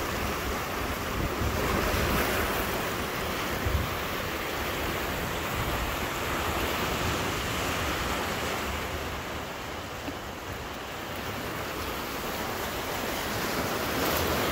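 Sea surf breaking and washing over a boulder and cobble shore, a steady rushing, with wind buffeting the microphone in a few low thumps.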